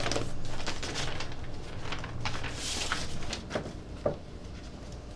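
Soft handling noises as documents are brought out and passed over: a short papery rustle a little past halfway and a few light knocks.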